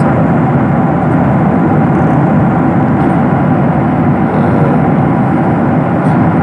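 Jet airliner cabin noise in cruise: the steady roar of the engines and rushing air heard from a window seat.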